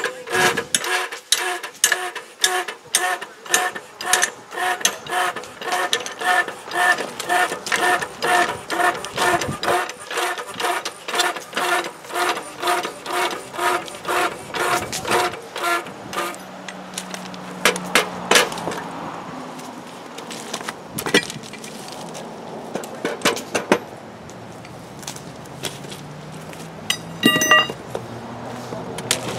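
Sledgehammer blows on steel at a thermite-welded railroad rail: evenly paced metallic strikes with a ringing tone, about two to three a second, for roughly the first half. After that a low engine hum runs under scattered clanks, with one loud ringing hit near the end as the mold is knocked off the hot weld.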